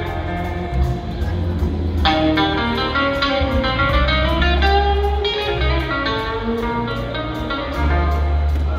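Live electric blues guitar jam played through a PA: lead guitar lines over bass and drums, with a long bent note that rises and falls about halfway through.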